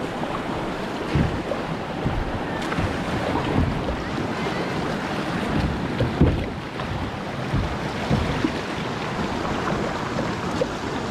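Steady rushing noise of river water and wind buffeting the microphone on a kayak, with irregular low thuds.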